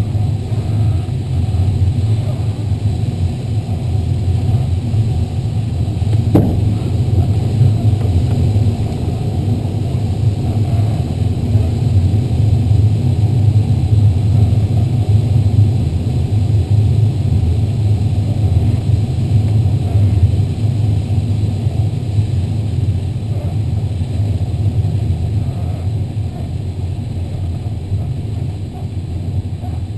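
Steady rushing airflow and rumble in the cockpit of an LS8-18 glider on landing approach, with a single brief click about six seconds in. The noise eases off near the end as the glider slows after touchdown.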